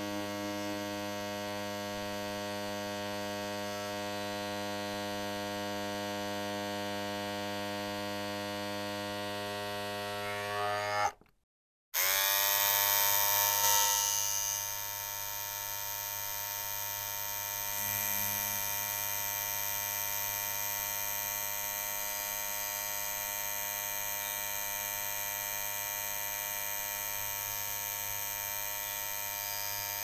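Electric shaver running with a steady buzz. It cuts out for under a second about eleven seconds in, then starts again, louder for a couple of seconds before settling back to a steady buzz.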